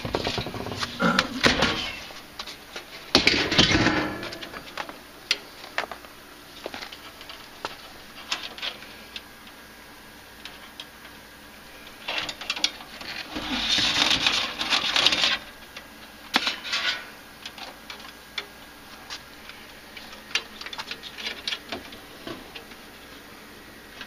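Hands feeding low-voltage wire into a gas furnace cabinet, with scattered clicks and taps against the metal. Louder rustling comes about 3 seconds in and again from about 13 to 15 seconds in.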